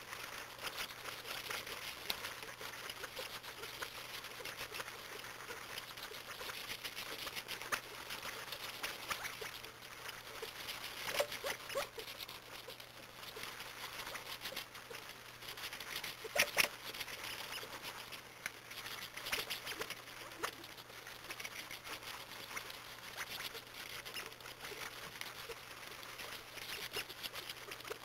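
A flock of California quail pecking and scratching for seed in the snow: a dense, constant pattering of small pecks and footsteps, with a few louder clicks about 11 and 16 seconds in.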